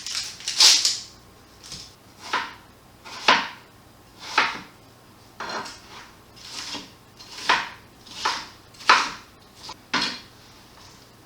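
Kitchen knife slicing through an onion on a cutting board, about ten separate crunching strokes roughly one a second.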